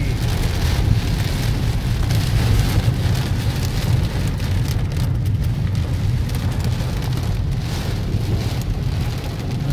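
Heavy rain beating on the roof and windshield of a moving car, heard from inside the cabin, over a steady low rumble of the car on the wet road.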